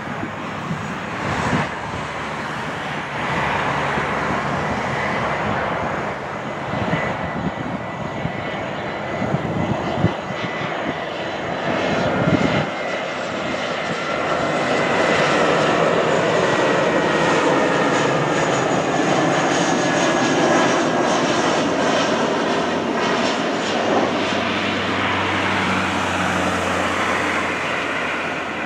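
Airbus A320's jet engines on landing approach: steady jet noise with a high whine that slowly falls in pitch, growing louder about halfway through as the aircraft nears.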